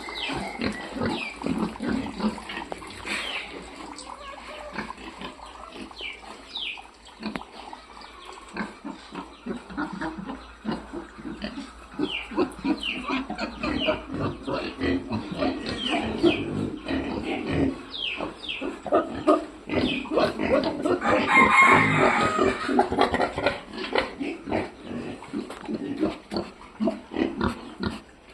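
A group of piglets grunting and snuffling continuously, with many short high squeals. A louder, longer call comes about three-quarters of the way through.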